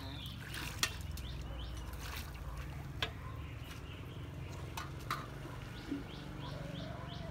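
Pond water sloshing as a pot and bowls are dipped and rinsed at the water's edge, with a few sharp knocks over a steady low rumble. Faint high chirps come near the end.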